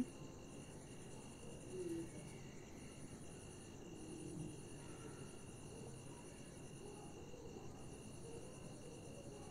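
Faint crickets trilling in the background, the high trill stopping and starting every second or two. A soft scrape of a spoon stirring thick simmering dal in the pan comes about two seconds in and again about four seconds in.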